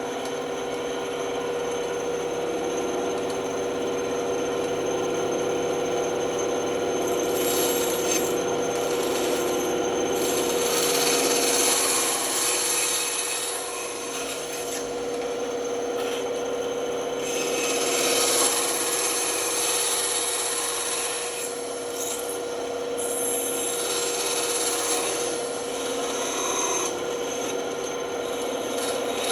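Band saw running with a steady hum while its blade cuts through wood, the cutting hiss swelling and easing several times as the cut goes on.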